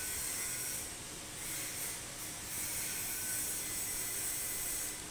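Steady high hiss of background noise, with no distinct event standing out.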